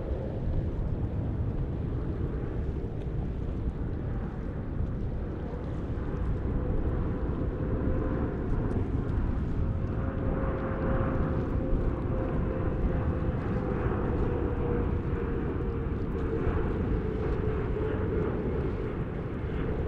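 Jet airliner engines on a landing approach: a steady low rumble with a whining tone that slowly drops in pitch over the second half.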